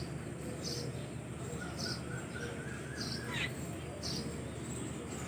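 Birds chirping, with short high-pitched chirps repeating about once a second and a fainter drawn-out call rising through the middle.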